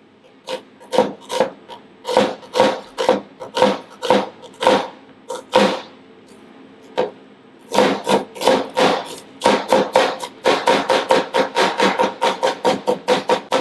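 Chef's knife dicing an onion on a plastic cutting board: the blade knocks against the board about twice a second. After a short pause about six seconds in, the chopping picks up to a faster run of four or five knocks a second.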